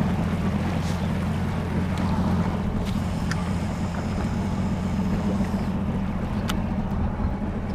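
A boat's engine idling steadily with a low hum, with a couple of faint clicks.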